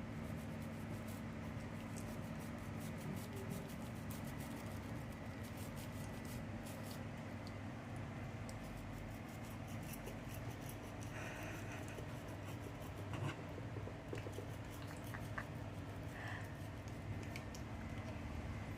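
Toothbrush scrubbing a cat's teeth: irregular small clicks and scrapes of bristles on teeth, over a steady low hum.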